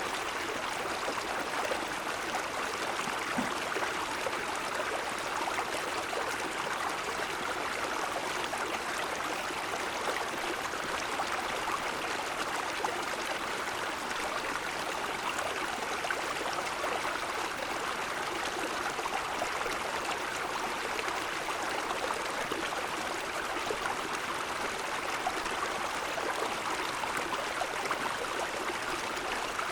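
Small forest stream flowing steadily, an even rush and trickle of water over stones.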